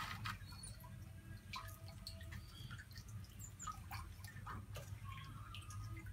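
Faint, scattered drips and small ticks, irregular and a few a second, over a low steady hum.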